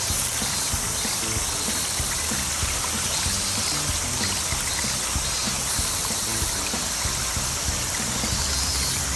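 Steak sizzling in a frying pan on a gas camp stove, mixed with a shallow stream running over rocks: a steady, even hiss. Background music plays throughout.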